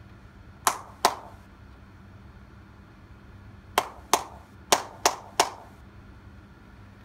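Seven sharp claps, each with a short room echo: two close together about half a second in, then five in quick succession from about four to five and a half seconds. A faint steady hum sits underneath.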